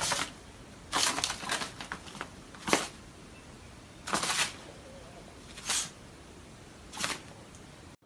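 A small puppy pouncing and hopping about, making a run of short, sharp noisy bursts, about six in all and roughly a second or so apart.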